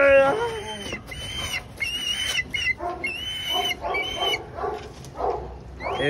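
Dog whining in a string of short, high-pitched calls, each about half a second long.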